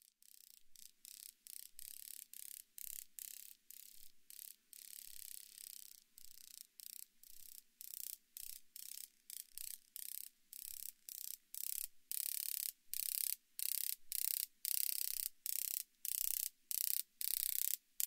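Male Carlinian snapper grasshopper (Circotettix carlinianus) crepitating in flight: its wings snap out a run of high-pitched crackling bursts, about two or three a second, growing louder as it comes in close and hovers over the microphone.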